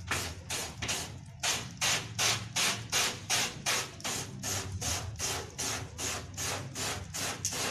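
Hand trigger spray bottle squirting again and again onto a screen-printing screen, washing out the exposed emulsion stencil: quick hissing sprays about three a second, with a short break about a second in.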